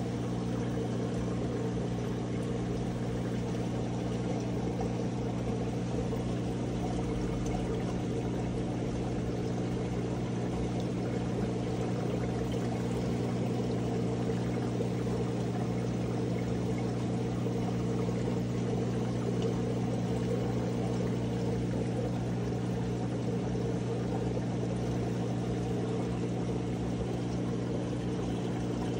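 Aquarium pump or filter running: a steady electric hum with water pouring and churning through the tank's circulation.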